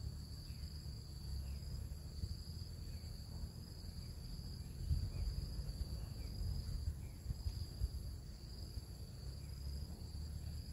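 Insects, crickets by the sound of the tags, trilling steadily on a few high, slightly pulsing notes, with faint short chirps repeating about once a second. A low rumble with a few louder bumps lies underneath.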